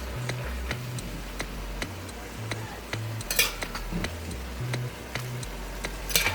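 Background music with a bass line and a steady ticking beat, with a metal utensil scraping against cookware twice, about three seconds in and near the end.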